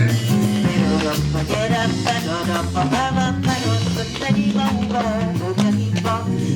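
Instrumental band music with an upbeat swing or ska feel: a drum kit keeps time over a stepping bass line while a lead melody line wavers above.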